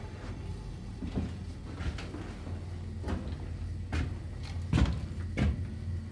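Scattered knocks and clunks of a door and metal fittings being handled inside an old diesel locomotive cab, about six in all, the loudest a little before five seconds in, over a steady low hum.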